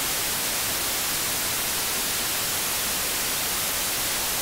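Steady, even hiss of white-noise static, like an untuned television.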